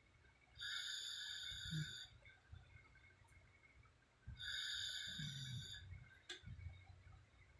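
A sleeping woman snoring: two long snoring breaths about four seconds apart, each a low rattling rumble with a hissing, whistling edge. There is a single light click between them.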